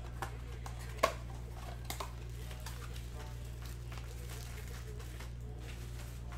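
Foil trading-card pack wrappers crinkling and cards being handled, with a sharp click about a second in, over a steady low hum.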